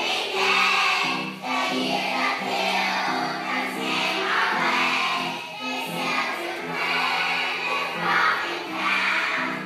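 A choir of young children singing a song together in held notes.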